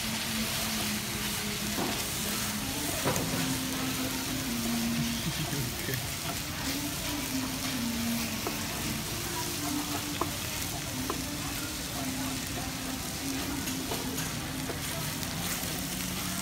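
Spicy chicken, cabbage and ramen noodles sizzling steadily in a wide, shallow pan on a tabletop burner, stirred with a wooden spatula that gives occasional light clicks against the pan.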